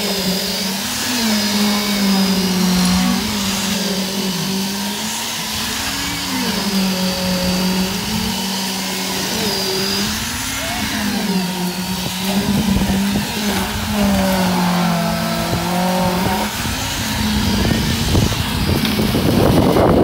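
Diesel engine of a concrete pump running steadily under load, its pitch rising and dipping every couple of seconds as concrete is pumped through the boom hose. A noisy rush swells near the end.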